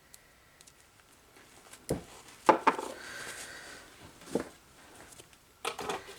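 A few light clicks and knocks of small objects being handled and set down on a hard surface, the loudest a pair about two and a half seconds in and a quick cluster near the end.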